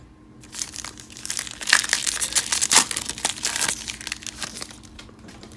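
Foil wrapper of a sports card pack being torn open and crinkled by hand. The wrapper crackles in a dense run of crinkles that is loudest in the middle and dies away about four seconds in.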